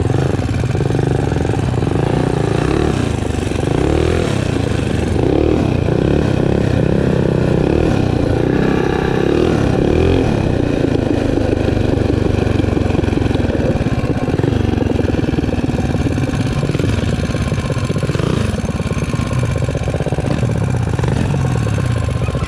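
Minibike's single-cylinder four-stroke engine running on the move, its pitch rising and falling with the throttle.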